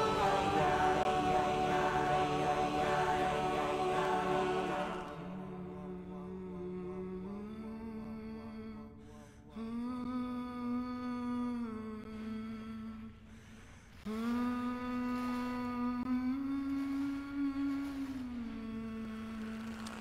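A voice humming a slow a cappella melody on long held notes that step up and down in pitch, with two short breaks for breath. The first few seconds are fuller and louder, with several voices layered.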